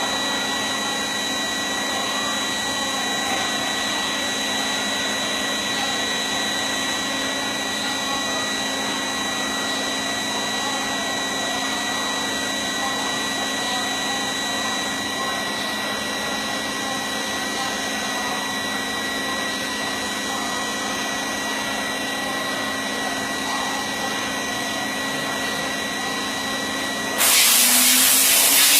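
CNC machine running steadily, a noisy hum with a fixed high whine. About a second and a half before the end, a much louder hiss cuts in and the low tone shifts up.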